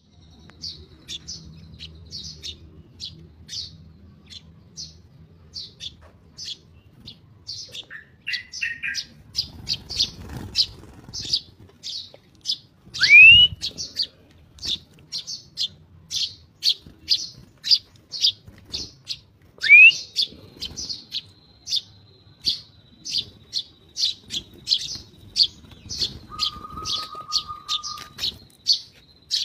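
Eurasian tree sparrow chirping over and over, short high chirps about two a second. Two loud rising whistles break in, about 13 and 20 seconds in, and a brief steady tone sounds near the end.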